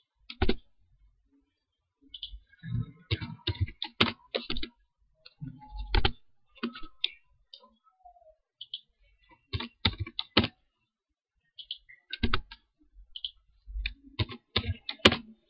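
Computer keyboard keystrokes, typed in irregular short bursts of clicks with brief pauses between them.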